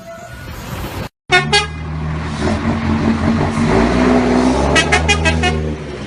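Vehicle horn sounding in short toots: a couple of quick blasts about a second and a half in, then a rapid run of about five toots near the end over a steadily running engine.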